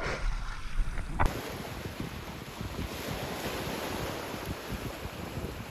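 Wind buffeting the microphone over the wash of water and small waves. The noise shifts about a second in and then stays steady and uneven.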